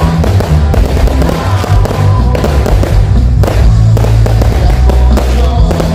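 Aerial fireworks bursting and crackling in quick, dense succession, with loud music playing underneath.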